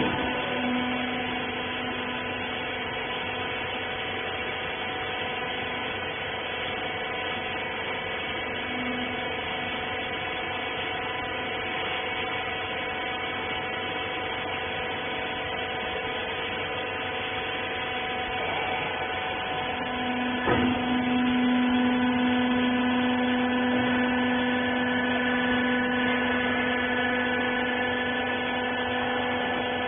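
Rag baler's hydraulic power unit running with a steady electric-motor hum and whine. About twenty seconds in there is a knock, and a deeper tone in the hum comes up louder, as though the press has come under load.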